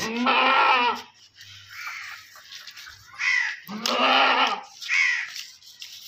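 Goat bleating: two drawn-out bleats, one right at the start and one just after the middle, with shorter, higher calls in between.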